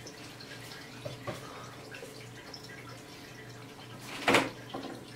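Aquarium water trickling and dripping from the tank's circulation, over a steady low hum from its pump. About four seconds in comes one short, louder rush.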